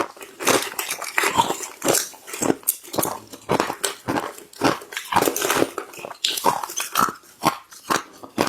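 Ice being bitten and chewed, a quick, irregular run of sharp crunches, roughly two a second.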